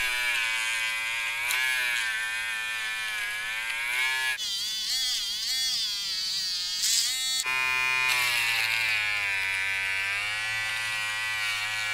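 Taurus mini rechargeable electric foil shaver buzzing as it is run over beard stubble on the chin and neck, its pitch wavering as it is pressed and moved against the skin. The tone changes for a few seconds in the middle, then settles again with a low hum underneath.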